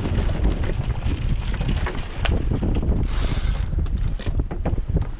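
A sailboat's sheet being hauled in quickly through blocks and a winch during a tack, with sharp mechanical clicks and a rushing hiss about three seconds in. Heavy wind rumble on the microphone runs underneath.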